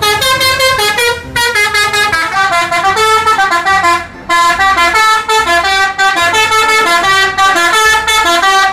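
Tour bus's multi-tone 'telolet' musical air horn playing a tune of stepping notes, loud, with short breaks about one and a half and four seconds in.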